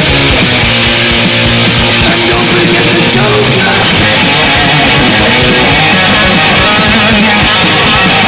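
Loud hard rock music with distorted electric guitar, playing without a break.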